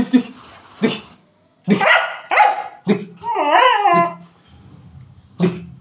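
German Shepherd barking in short sharp barks, breaking about halfway through into a wavering, up-and-down whine lasting about a second, then one more bark near the end.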